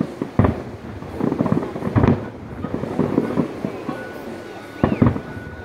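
Aerial fireworks shells bursting at a distance: three sharp bangs, the later ones a second and a half to three seconds apart, with a low rumbling background between them.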